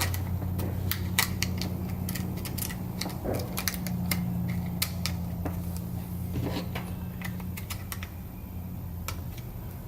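Light, irregular clicks and taps of plastic power-tool housing parts being handled and fitted together, over a steady low hum.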